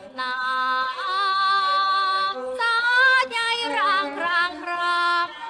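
A woman singing alone, with no accompaniment: an isolated vocal track. She holds long notes with vibrato, breaks briefly, then sings a winding ornamented run in the middle before settling onto held notes again.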